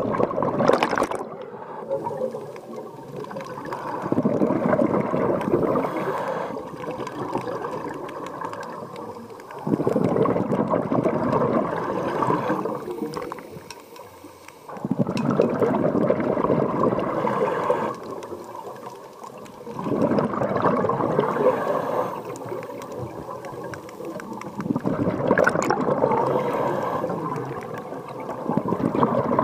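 Scuba diver exhaling through the regulator underwater: loud gurgling bursts of exhaust bubbles, each lasting two to three seconds, coming about every five seconds with the breathing, six or so times.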